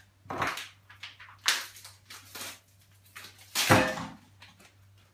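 Kitchen utensils and cookware handled on a worktop: four short clatters, the loudest about three and a half seconds in, over a faint low hum.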